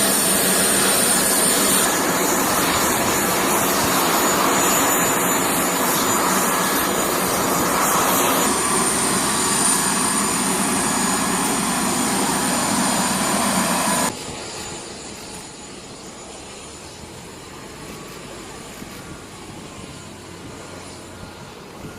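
Turbofan jet engines of a C-5M Super Galaxy transport running loud with a thin high whine, over several edited shots; about fourteen seconds in the sound drops suddenly to a much quieter, steady engine noise.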